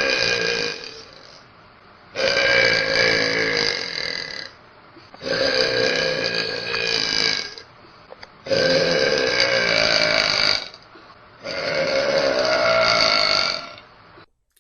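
A young woman burping loudly over and over: one burp trails off about a second in, then come four long, drawn-out burps of about two seconds each, with short pauses between them.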